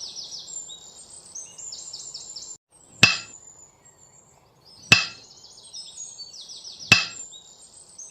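Three sharp hammer blows on metal about two seconds apart, each ringing briefly, over birds chirping.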